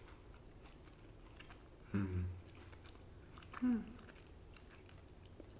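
People chewing homemade oatmeal chocolate chip cookies, with small scattered crunches as the cookies are bitten and broken. Two short, louder voice sounds come about two seconds in and again near the four-second mark.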